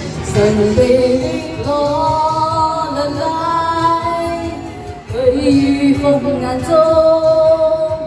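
A woman singing a pop song live into a handheld microphone through a PA, over instrumental accompaniment, holding long notes.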